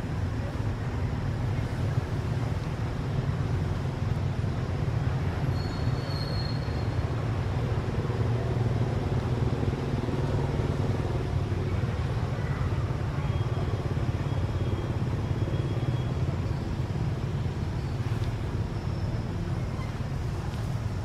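Steady low rumble of outdoor background noise, with a faint short high chirp about six seconds in.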